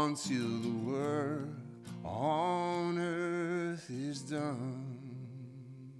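A man singing a slow worship song in long held phrases with vibrato, over a sustained acoustic guitar accompaniment; the singing fades out near the end.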